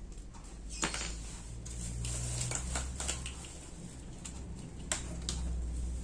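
Gree 16-inch air-conditioner condenser fan switched on with a click about a second in, its motor giving a low steady hum as the three-blade plastic fan spins up. A few more clicks and taps follow from the switch and wiring being handled.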